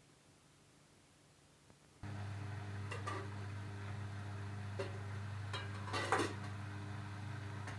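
Arçelik washing machine switches on a steady low hum about two seconds in, with a few light knocks and rattles over it.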